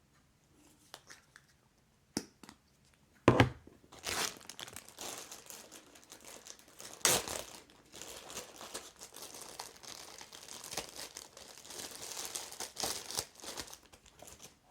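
Crinkling and rustling of something crinkly being handled close to the microphone, with a sharp knock about three seconds in.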